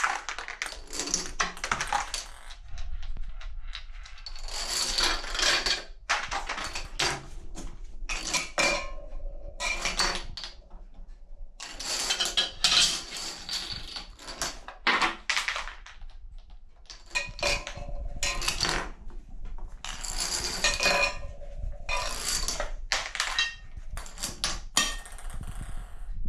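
Small plastic dominoes toppling in a long chain reaction along a wooden table top, clattering in runs a second or two long with brief pauses between, as one section of the run sets off the next.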